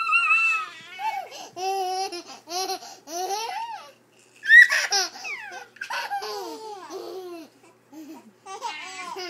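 A baby laughing in short repeated bursts, mixed with a toddler's high-pitched vocalising. About four and a half seconds in, the toddler gives a loud, high squeal as the baby pulls her hair.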